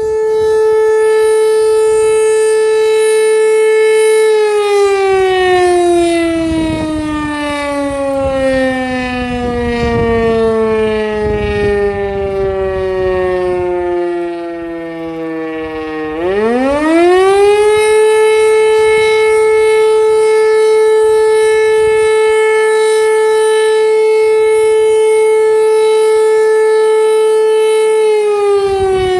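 E57 electromechanical motor siren sounding a test alarm. It holds a steady wail, winds down in a long falling glide for about twelve seconds, spins back up to full pitch within about two seconds and holds again, and starts to wind down once more at the end.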